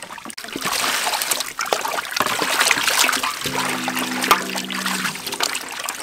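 Hands washing long beans, carrots and onions in a large aluminium basin of water: continuous splashing and sloshing with small clicks. A steady low droning tone joins for about a second and a half past the middle.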